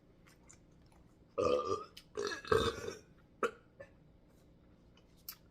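Two short burps, about a second and a half and two and a half seconds in, followed by a faint click of eating.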